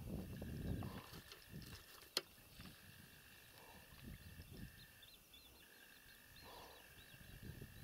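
Quiet outdoor ambience by open water, with faint high chirping from small wild animals through the middle, low rumbles at the start and a few times after, and one sharp click about two seconds in.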